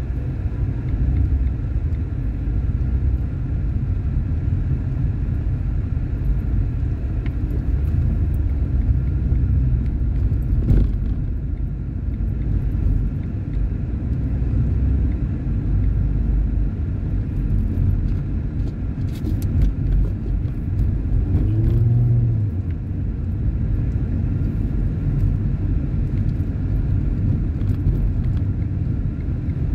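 Road and engine noise inside a moving car's cabin: a steady low rumble, with a single knock about eleven seconds in.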